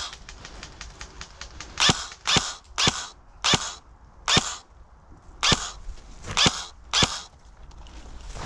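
Airsoft rifle firing single shots, about nine sharp cracks at an uneven pace with gaps of half a second to a second between them.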